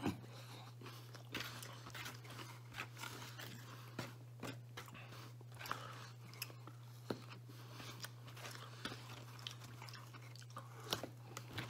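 A man chewing and biting pizza, close to the microphone: faint, scattered crunchy clicks of biting and chewing over a steady low hum.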